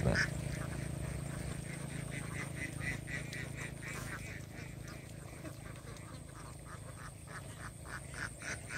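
A flock of domestic ducks quacking in a quick run of short calls, several a second, fading somewhat in the middle and picking up again near the end, as they forage in a harvested rice paddy.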